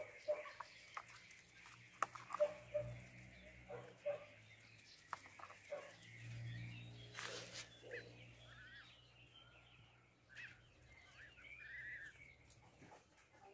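A flock of goslings about two weeks old peeping faintly in short wavering chirps, mostly in the second half, with scattered soft clicks and one louder rustle about seven seconds in.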